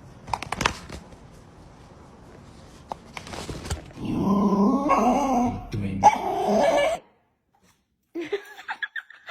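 A dog vocalizing for about three seconds in long, wavering grumbling barks that cut off suddenly.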